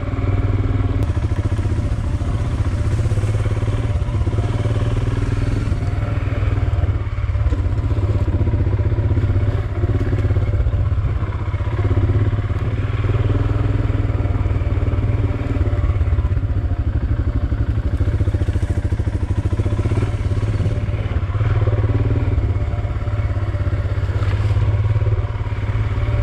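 Royal Enfield Himalayan's single-cylinder engine running at a low, even throttle while the bike is ridden slowly over wet, soft ground.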